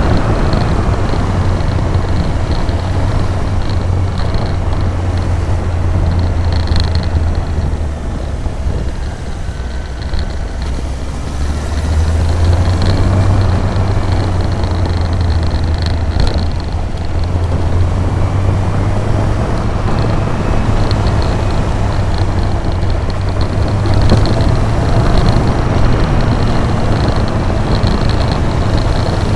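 Motorcycle engine running while riding along a road, with heavy wind rush and road noise. The engine eases off about eight seconds in and picks up again around twelve seconds.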